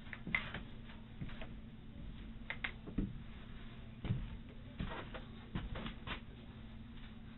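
Faint scattered clicks and soft knocks over a steady low electrical hum.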